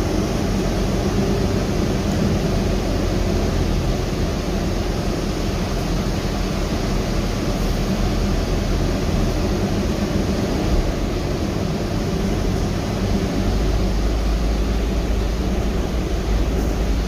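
Steady cabin noise inside a moving Gillig 35-foot trolley-replica hybrid bus: drivetrain and road noise with a deep rumble, the rumble growing stronger about thirteen seconds in.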